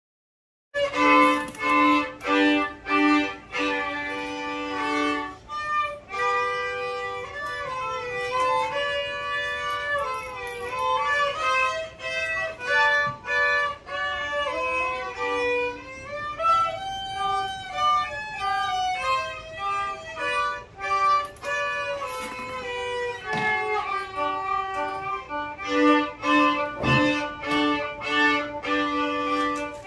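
Two violins played by young students, bowing a melody together with many repeated short notes. The playing starts after a split-second of silence.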